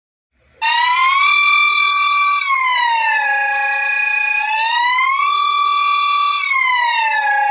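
Emergency-alert alarm tone, a synthetic siren wail that starts about half a second in. It glides up to a high pitch, holds it, then slides down to a lower pitch and holds that, going round this high-low cycle about twice.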